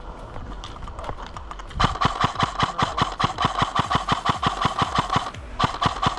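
Airsoft gun firing on full auto: a rapid, even rattle of shots that starts about two seconds in, pauses briefly near the end, then fires a second burst.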